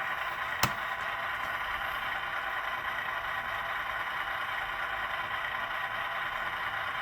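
HO scale GE Tier 4 GEVO model locomotive's sound decoder playing a steady diesel engine sound through its small onboard speaker, with one sharp click about half a second in.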